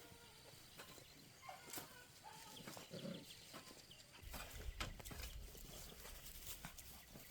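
Faint animal calls among scattered clicks and knocks, with a low rumble starting about four seconds in.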